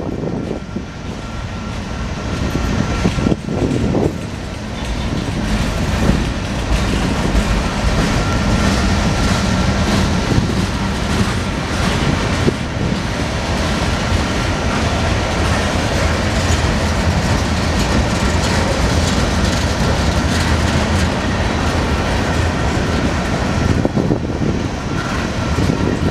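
Freight cars of a Union Pacific manifest train rolling past: a steady rumble of steel wheels on rail, with repeated clicks as the wheels cross rail joints and a faint steady high tone over it.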